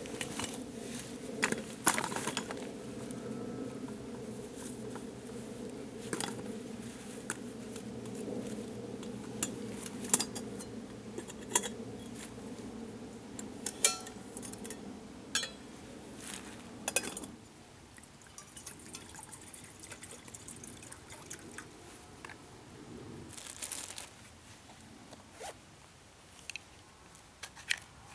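Camp stove burning with a steady rush that stops abruptly about 17 seconds in, amid repeated clinks and clicks of metal cookware being handled.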